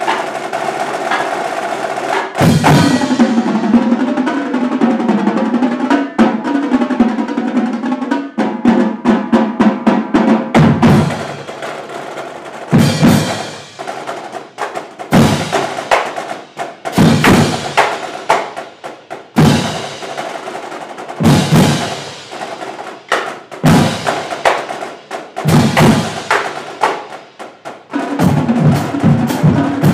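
Marching drumline with snare, tenor and bass drums playing a cadence. Light playing gives way to the full line about two and a half seconds in. From about eleven seconds in it breaks into loud unison hits roughly every two seconds with sparse strokes between, and the full groove returns near the end.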